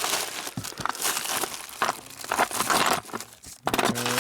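Hands rummaging through a junk box of loose hardware and parts, in uneven bursts of rustling and shuffling with a few sharp knocks.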